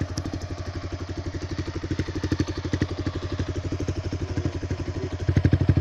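Yamaha R15 V3's 155 cc single-cylinder engine idling through a replica Akrapovic exhaust: a steady, rapid, low exhaust beat that grows louder shortly before the end.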